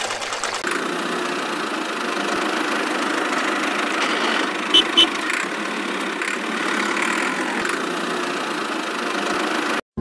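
Miniature toy tractor running steadily with an even, engine-like hum, with two sharp clicks about halfway through; the sound cuts off suddenly just before the end.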